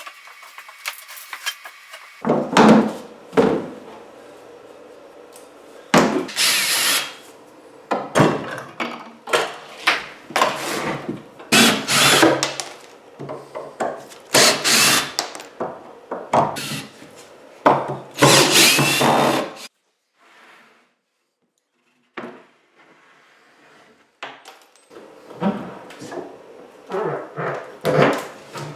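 A power drill on wood, running in a series of short bursts of about a second each, with a brief pause about two-thirds of the way through.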